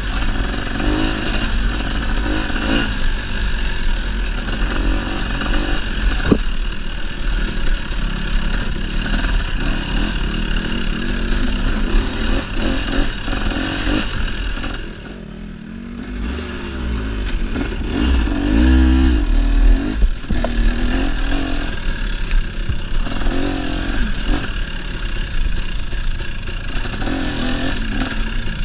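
Dirt bike engine running under varying throttle while riding a trail. It drops off sharply about halfway through, then revs back up.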